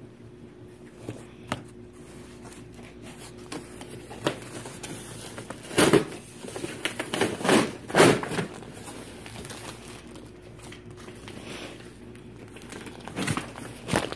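Plastic-wrapped mattress and its cardboard box being handled: crinkling plastic and rubbing cardboard in irregular rustles, loudest in a cluster around the middle and again near the end.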